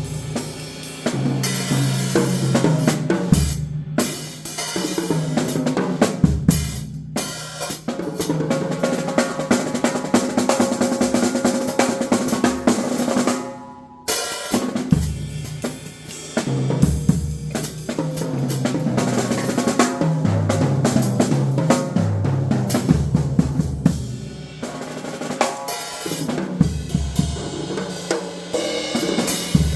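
Drum kit played solo in fast, dense patterns, with brief breaks about four, seven and fourteen seconds in.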